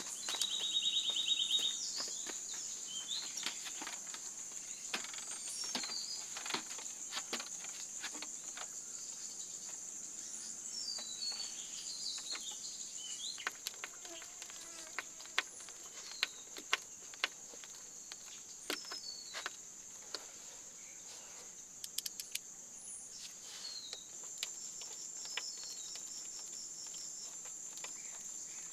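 A steady high-pitched drone of forest insects, with short bird chirps. Scattered light clicks and taps, sharpest in the middle stretch, come from a hand screwdriver driving screws into a metal door hinge.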